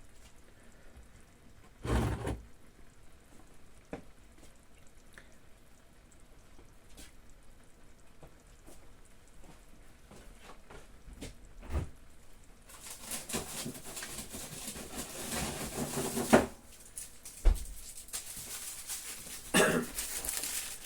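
Kitchen handling sounds: scattered knocks and clicks of items being moved and set down, a louder knock about two seconds in, then several seconds of rustling noise with sharp thunks near the end.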